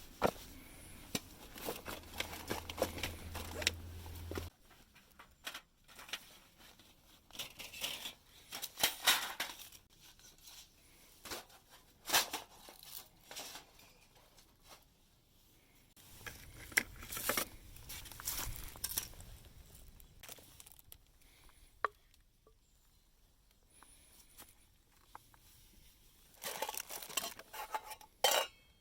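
Handling noises of camp gear: rustling and crinkling, with scattered light clicks and clatter and a couple of short metallic pings.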